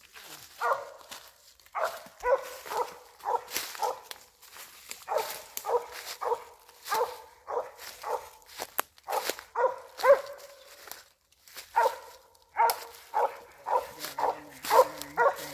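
A squirrel dog barking treed, in runs of quick barks about two to three a second with short pauses between. Footsteps crunch through dry fallen leaves.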